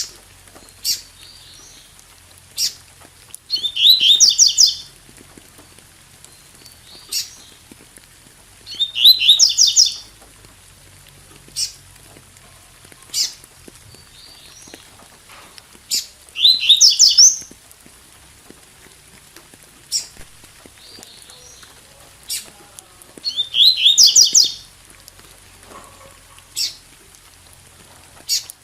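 Double-collared seedeater (coleiro) singing its 'tui tui' song: four loud phrases of about a second each, made of rapid repeated high notes, several seconds apart, with single sharp call notes in between. A faint rain sound runs behind.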